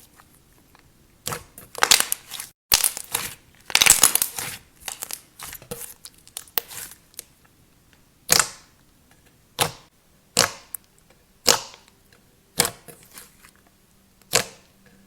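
Clay slime being squished and poked by hand, giving sticky, crackly pops. A dense run of crackling comes in the first half, then single pops about once a second.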